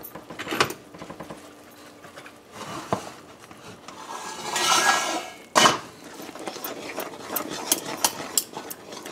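Metal spoon scraping and clinking against a metal pot while stirring a thick fudge mixture, with scattered knocks and one louder clunk a little past halfway.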